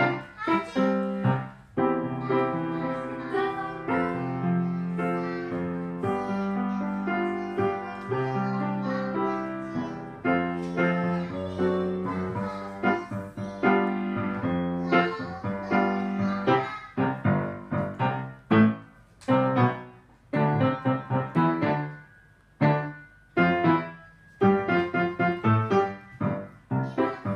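Instrumental music on a keyboard instrument with no singing: a melody of struck notes over held chords. After about the middle it turns to shorter, detached notes with brief pauses.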